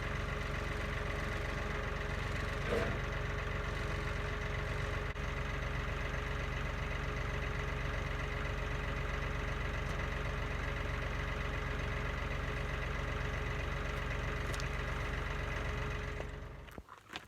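An engine idling steadily, then dying away near the end.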